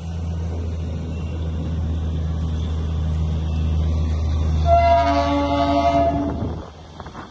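Darjeeling Himalayan Railway toy train passing with a steady low rumble, sounding its horn once for about a second and a half near the end.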